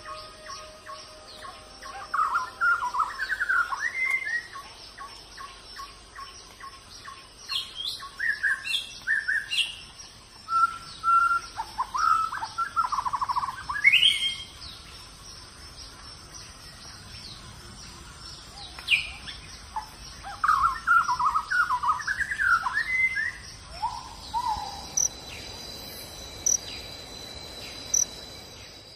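Birds singing in forest: repeated quick warbling phrases with sliding notes, coming in bursts with short gaps. A steady high insect drone runs underneath, with a second lower insect buzz joining near the end.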